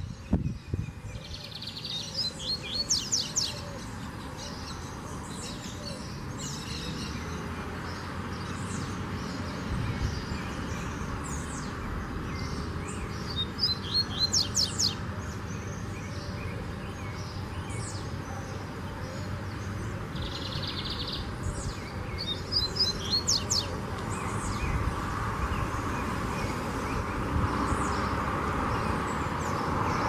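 Lined seedeater (bigodinho) singing three short song phrases, one near the start, one in the middle and one about two-thirds through, each opening with a buzzy trill and running into a quick series of sharp, high notes. A steady low background noise runs underneath and grows a little louder near the end.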